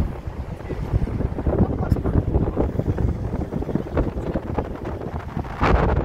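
Wind buffeting a phone's microphone from a moving car, over a rumble of road and tyre noise, with a louder gust near the end.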